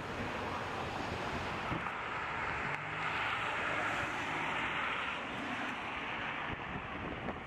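Street traffic going by: tyre and engine noise of passing vehicles as a steady rushing sound that swells through the middle and eases off near the end, over a faint low engine hum.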